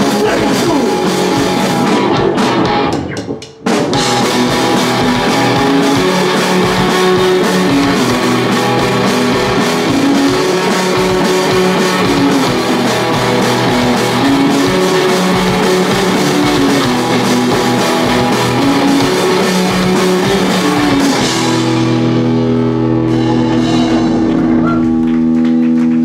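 Live rock band playing on a Ludwig drum kit, bass guitar and electric guitar. The band stops briefly about three seconds in, then comes back in together. Near the end the drums drop out and held notes ring on.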